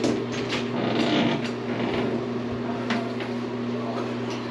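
Interior door knob turned and latch clicking, the door swung open with a creak and the knob handled, over a steady hum.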